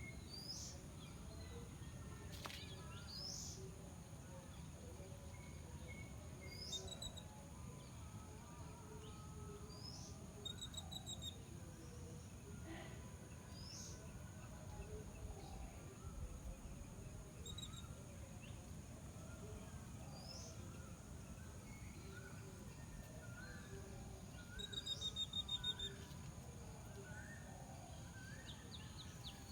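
Birds calling outdoors: one repeats a short, sharp call every two to three seconds, with quick trills twice and softer chirps from others, over a steady low background rumble.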